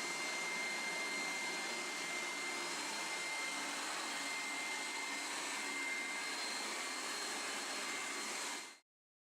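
Hoover SteamVac All-Terrain carpet cleaner running steadily, its suction motor giving a rushing noise with a thin high whine, then fading out near the end.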